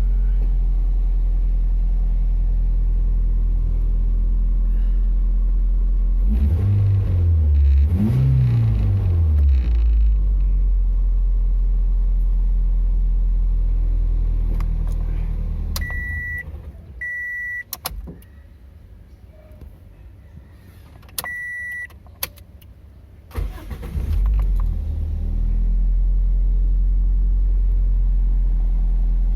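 Toyota Vios engine idling, revved twice and settling back, then switched off; three short high beeps sound while it is off, and the engine is started again and idles steadily.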